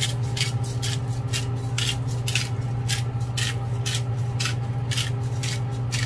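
Hand-twisted sea salt grinder crunching salt crystals over a pan of chicken, short gritty rasps about twice a second, over a steady low hum.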